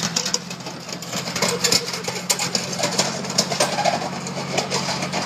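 Large tractor's diesel engine running steadily under load as it works a Hese grader blade over a gravel road, with irregular sharp crackles of gravel under the blade and tyres.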